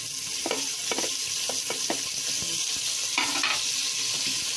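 Onion, garlic and tomato sautéing in hot oil in a metal pot, sizzling steadily, while a wooden spatula stirs them with repeated short scrapes against the pot. The loudest scrapes come a little after three seconds.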